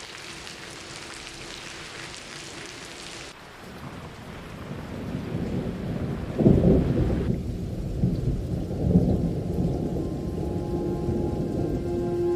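Steady rain hiss, then thunder rumbling in and building, with loud peaks about six and a half and nine seconds in. A low held note comes in near the end.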